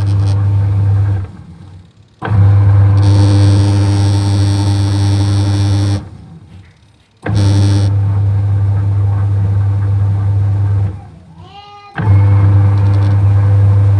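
Automatic washing machine's motor humming loudly in blocks of about four seconds, each starting and stopping abruptly, with pauses of about a second between. A short rising whine comes just before the last block. This is the noise presented as the machine's sound problem.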